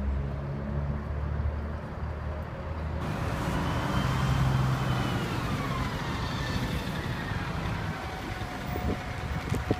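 Vehicle noise: a steady low engine hum, then, after an abrupt change about three seconds in, broader road or traffic noise with a faint high tone that slowly slides down and back up.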